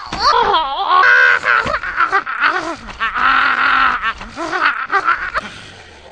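High-pitched squeaky cartoon voices wailing and squealing in short, sharply bending cries, chopped by abrupt cuts. About five and a half seconds in it drops to a faint hiss.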